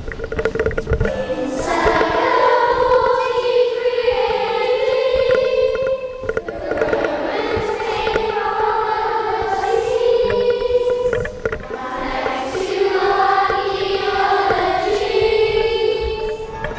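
Children's choir singing together in long held phrases, with short breaks about six and eleven seconds in.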